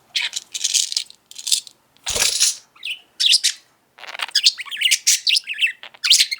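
A budgerigar chattering and warbling without a break, a fast run of high chirps and squeaky babble. About two seconds in there is one brief, harsher burst of sound.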